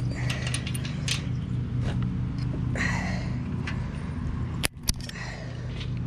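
Metal clicks and rattles as the e-bike's rear frame is pried apart by hand and the wheel axle is worked into the dropouts. Two sharp metallic knocks come just before five seconds in, as the axle drops into place. A steady low hum runs underneath.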